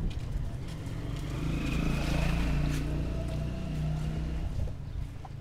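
A motor vehicle's engine running close by as it passes. It grows louder to a peak in the middle and fades near the end.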